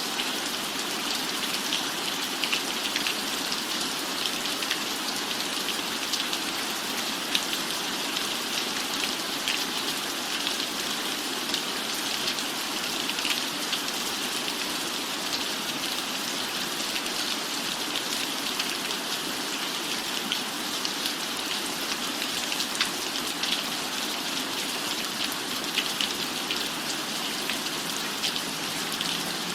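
Steady rain falling: an even hiss dotted with the sharp ticks of single drops.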